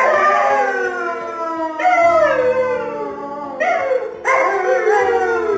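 A puppy howling in four long calls, each sliding down in pitch, over background music with held chords.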